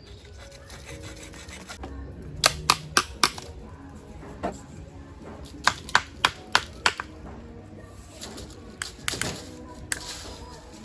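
Runs of sharp knocks, four or five in quick succession, with pauses between runs, as a PVC water pipe is worked on. Doves coo faintly in the background.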